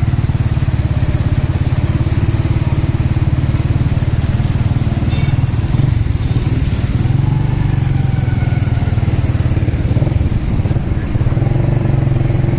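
Small motorcycle engine running steadily under way, with its low, even pulsing throb.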